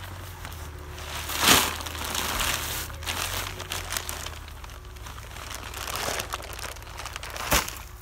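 Paper bag of white masonry cement crinkling as it is tipped and the dry powder pours out into a plastic mixing tub, with two louder crackles of the bag, one about a second and a half in and one near the end.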